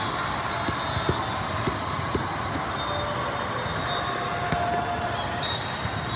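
Din of a large hall with several volleyball games in play: steady crowd chatter with scattered sharp smacks of volleyballs being hit and bounced, and short high referee whistle blasts, one about three seconds in and another near the end.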